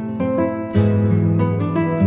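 Instrumental background music of plucked string notes, with a fuller chord struck about three-quarters of a second in.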